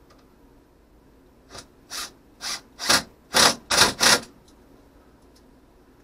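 Seven short scraping strokes of hand work, about two a second, each louder than the one before; the last three are the loudest.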